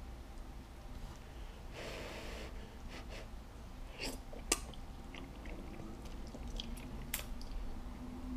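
A man slurping a forkful of brothy instant noodles and chewing them. There is a hissing slurp about two seconds in, then chewing with faint scattered clicks and smacks.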